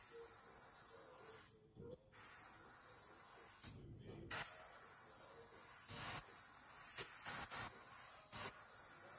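Airbrush hissing steadily as it sprays white paint onto a crankbait lure. The air cuts off twice for about half a second as the trigger is let go, then stutters briefly a few times near the end.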